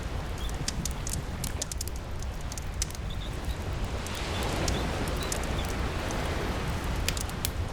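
Ambient mix of steady rain and sea surf with a campfire crackling: sharp pops scattered throughout over a constant rushing noise, and a wave swelling up about halfway through.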